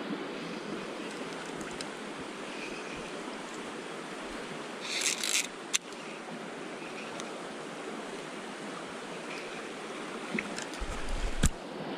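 Steady rush of a shallow river running over rocks. A short hiss and a sharp click come about five seconds in, and a low knock with a click near the end.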